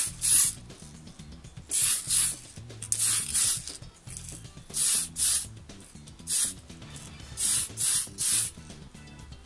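Aerosol spray paint can hissing in about a dozen short bursts, mostly in pairs with pauses of about a second, as a coat of paint is laid on.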